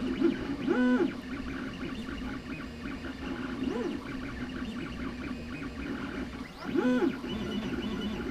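3D printer's stepper motors whining in shifting tones as the print head moves, the pitch sweeping up and back down on quick moves about a second in, around four seconds and near the end.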